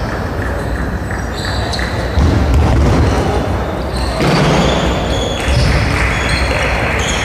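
Table tennis balls ticking off bats and tables, in short scattered clicks, over the steady echoing din of a large sports hall.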